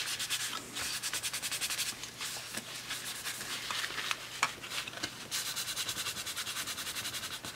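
A paper tissue rubbed quickly back and forth to wipe thermal grease off a plastic downlight lens and fingers: a fast, scratchy run of strokes, many a second, louder in two spells with quieter rubbing between.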